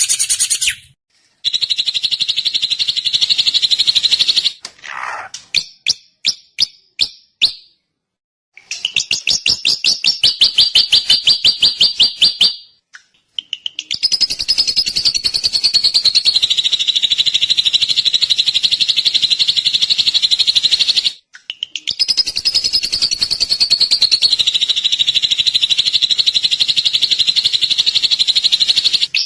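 Drongo song: long trills of very rapid, evenly repeated high notes, in phrases several seconds long separated by short breaks. About five seconds in there is a lower sliding note followed by a looser string of separate notes before the fast trilling resumes.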